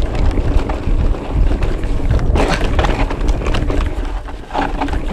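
Wind rushing over the microphone and the rumble of an electric mountain bike's tyres on a dirt trail at speed, with knocks and rattles from the bike over bumps, a sharper one about halfway through.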